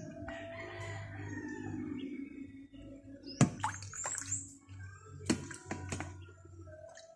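Nutrient solution poured from a plastic dipper splashing and trickling into a metal tray of foam cups for the first couple of seconds, followed by a few sharp knocks and clicks.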